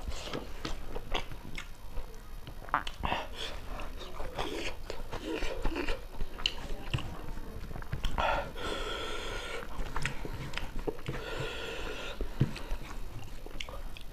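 Close-up mouth sounds of a person eating rice and pork curry by hand: wet chewing, lip smacks and short clicks, steadily repeated. Twice in the second half a higher pitched, drawn-out sound rises in the background.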